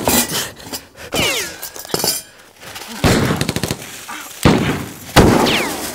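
Battle sound effects: scattered rifle shots and a few quick bursts of fire, with reverberation. Twice, about a second in and near the end, a shot is followed by a thin whine falling in pitch, like a bullet ricochet.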